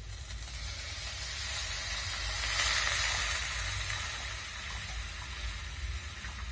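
Water poured into a hot wok of frying oil, hissing and sizzling as it hits the pan. The sizzle swells to its loudest about three seconds in, then dies down as the water cools the oil.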